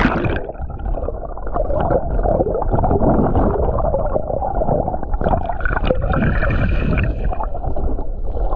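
Water heard through a submerged camera's microphone: a dull, muffled churning with bubbling and scattered clicks.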